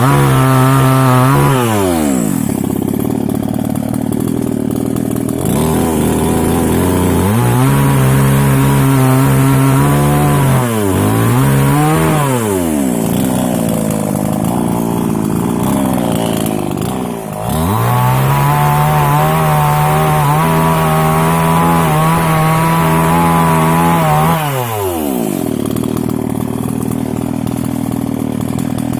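Mini two-stroke chainsaw revving to full throttle and dropping back to idle several times, with the longest full-throttle run lasting about seven seconds in the second half, while cutting rubber-tree wood. It ends idling.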